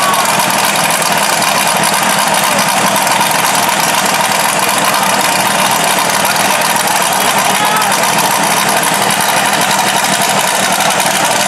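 Side-by-side UTV engines idling as the machines creep through the finish area, a loud, steady running noise that neither rises nor falls.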